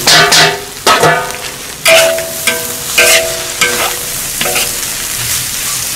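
Long metal spatula scraping and striking a large iron wok about once a second, each stroke making the wok ring, over a steady sizzle as dried shrimp and garlic leaves are stir-fried.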